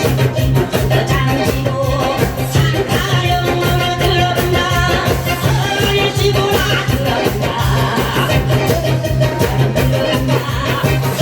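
Lively Korean folk song (taryeong) with a steady, driving rhythm of drums and janggu hourglass drum beaten by several people, with singing over it.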